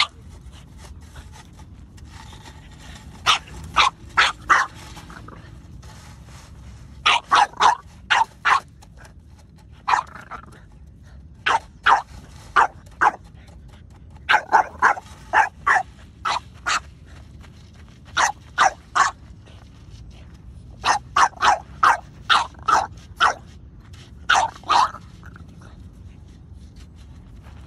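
French bulldog barking in play at a push broom, in quick runs of two to five short sharp barks, with a second or two between runs.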